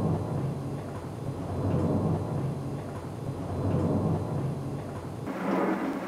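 Thunder rumbling, swelling and fading about every two seconds; a brighter, sharper thunderclap comes in about five seconds in.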